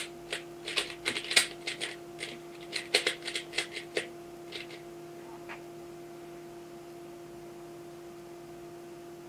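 3x3 Rubik's cube being turned quickly while it is scrambled: a fast, uneven run of plastic clicks and clacks for about four seconds, then a few scattered clicks. After that only a steady electrical hum is left.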